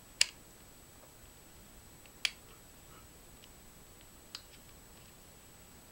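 Plastic snap clips on an Asus Eee PC 1005HA's screen bezel clicking into place as it is pressed home: two sharp clicks about two seconds apart, then a softer one.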